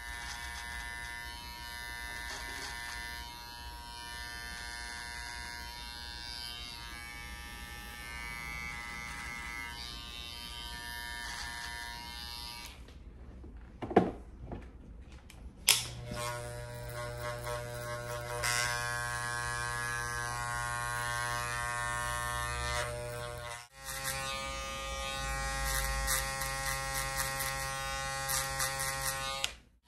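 Cordless hair clipper buzzing steadily as it trims a beard. The buzz stops for about three seconds midway, with two sharp clicks around the gap, then starts again and runs on with one brief drop-out.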